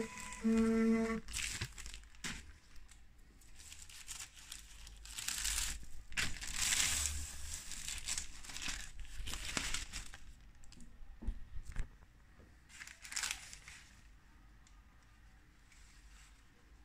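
Thin sheet of thermal printer paper rustling and crinkling in irregular bursts as it is handled, loudest a few seconds in and again briefly near 13 seconds. About a second in, a short steady whine is heard, as of the portable thermal printer's paper-feed motor.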